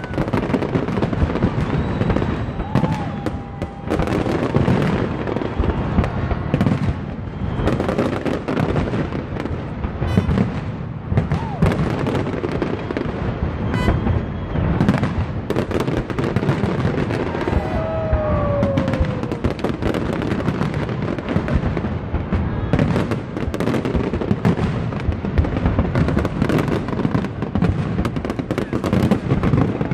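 Aerial fireworks in a large display: shells bursting in rapid succession with dense crackling, the bangs overlapping with no pause.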